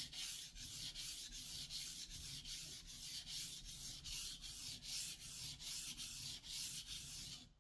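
Steel santoku blade stroked back and forth on a wet 1000 grit whetstone: a rhythmic scraping hiss of quick, even strokes, several a second, as the edge is honed.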